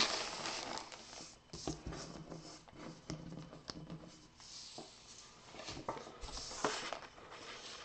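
Faint rustling and crinkling of a clear plastic bag around a jersey as it is handled and stood upright, with scattered light clicks and taps.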